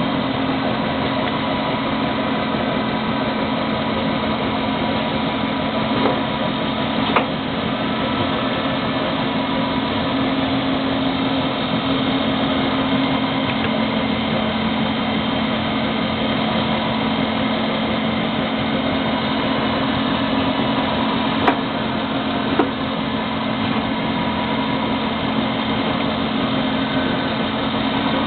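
Servo-controlled special-purpose drilling machine running: a loud, steady mechanical hum with a strong low drone, broken by a few sharp clicks, two about a quarter of the way in and two about three quarters of the way in.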